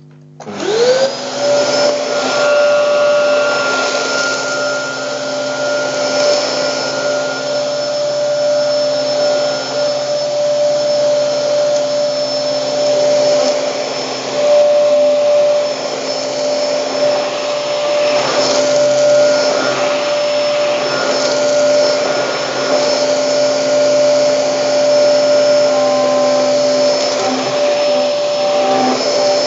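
Hoover Hurricane vacuum cleaner switched on about half a second in: its motor whine rises quickly to a steady pitch, then it runs steadily while cleaning carpet on the everyday cleaning setting.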